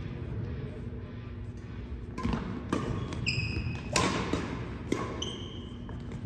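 Badminton rally: sharp racket strikes on the shuttlecock starting about two seconds in and coming roughly once a second, with short high squeaks of sneakers on the hardwood court floor between them.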